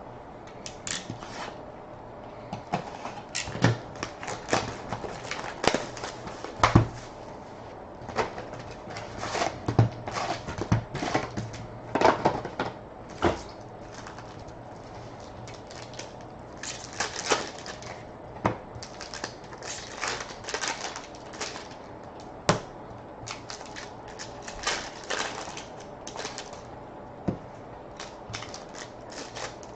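Hands opening and handling a box of hockey trading cards: cardboard and foil wrappers crinkling and tearing, with cards tapped and slid against each other in many short irregular clicks and rustles. A low steady hum runs underneath.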